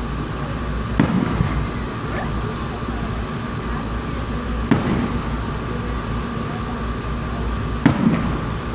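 Aerial fireworks shells bursting: three booms roughly three seconds apart, each with a short low rumble after it, over steady low background noise.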